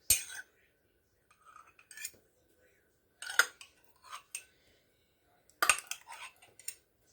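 A metal utensil clinks and scrapes against a jar or dish in four short clusters of sharp clicks, as homemade grape jelly is scooped out.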